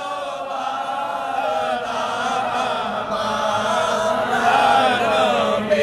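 A congregation of many voices chanting a naat together, a devotional song praising the Prophet, sung as one slow, wavering refrain that holds at a steady level.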